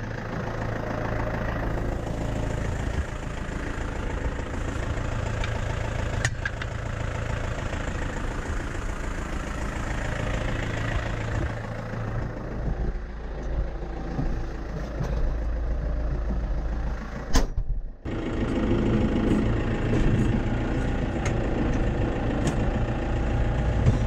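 Tractor diesel engine running steadily, with a sharp click and a brief gap about two-thirds of the way through.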